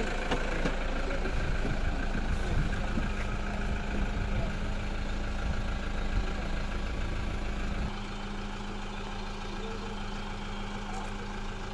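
A motor vehicle engine idling steadily, with a heavy low rumble that drops away suddenly about eight seconds in.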